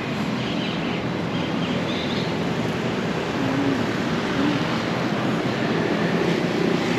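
Steady rushing noise of street traffic, with faint voices now and then.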